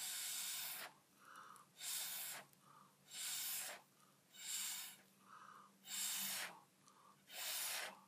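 Puffs of breath blown through a plastic drinking straw onto wet acrylic paint, pushing it into lacing. Six short breathy hisses, about one a second.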